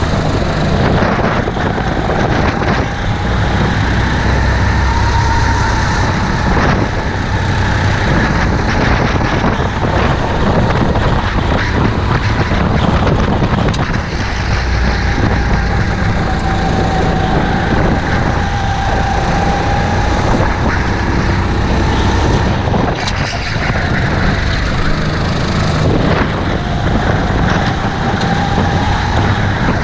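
Onboard sound of a Sodi rental kart's engine running at racing speed, its pitch rising and falling with each straight and corner, under heavy wind noise on the microphone and the rattle of the chassis over the track. Nearby karts' engines are mixed in, with a couple of sharp knocks late on.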